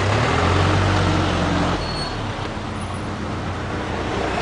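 A motor vehicle's engine running close by over steady street traffic noise. The engine is louder for the first couple of seconds, then eases off.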